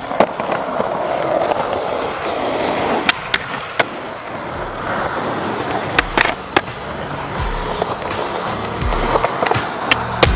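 Skateboard wheels rolling over rough asphalt, with several sharp pops and clacks as the board is snapped and lands. Music with a bass line plays underneath.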